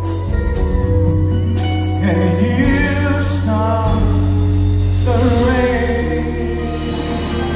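A live band playing with heavy bass and keyboards while a male lead sings, with held, bending sung notes about two seconds in and again about five seconds in.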